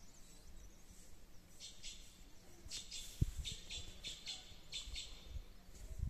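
Birds chirping in short, high, repeated chirps, about two to three a second, starting about one and a half seconds in. A single low thump about three seconds in.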